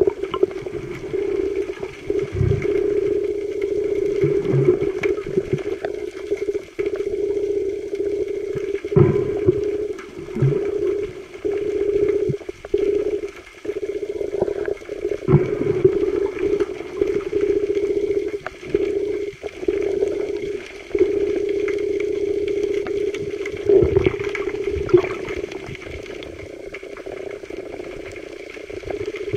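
Underwater recording: a steady droning hum that wavers slightly, with scattered knocks and thumps.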